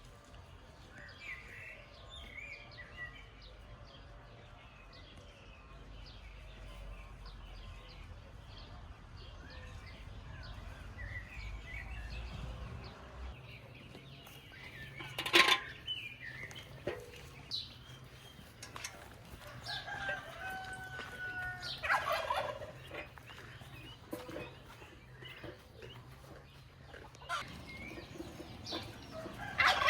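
Farmyard poultry calling: scattered faint calls, then several loud calls about halfway through, around two thirds in and at the very end.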